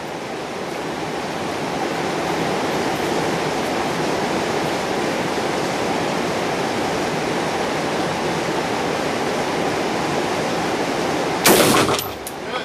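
A steady rushing noise, then one loud AR-15 rifle shot near the end.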